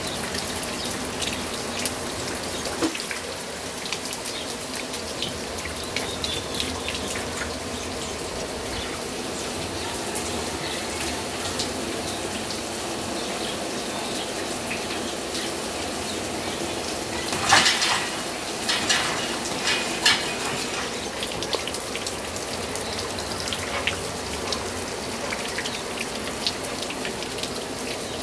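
Steady rain falling, with scattered drips and clicks and a few louder sudden noises about two-thirds of the way through.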